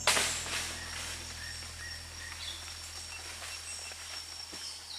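A single shot from a Semar Neo Z PCP air rifle: one sharp crack at the start. Then a steady high insect drone continues with scattered bird chirps.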